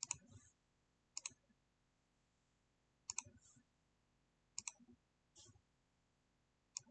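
Faint computer mouse clicks: about half a dozen short clicks, most in quick pairs, spaced a second or two apart.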